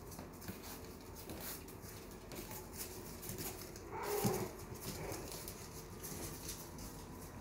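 Yorkshire terrier puppies moving about on a hard floor, their claws ticking faintly, with one short puppy cry about four seconds in.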